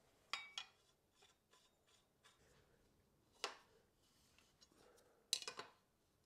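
Sharp metallic clinks of a steel headset spanner on a threaded headset's lock ring and cup as they are unscrewed: two about half a second in, one about three and a half seconds in, and a quick run of several near the end, the loudest.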